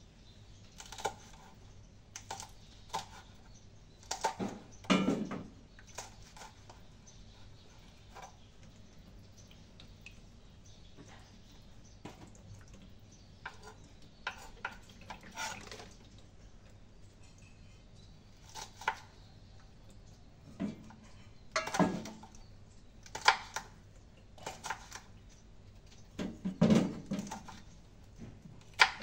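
Kitchenware being handled: scattered clinks and knocks of dishes, pans and cutlery, some with a short ring. The loudest clatters come about five seconds in, around twenty-two to twenty-three seconds in, and again near the end.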